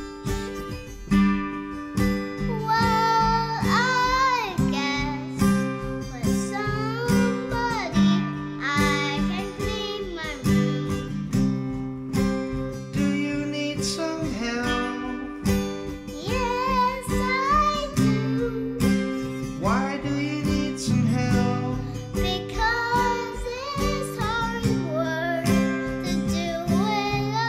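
Acoustic guitar strummed and picked in a steady rhythm while a young girl sings a wavering melody over it.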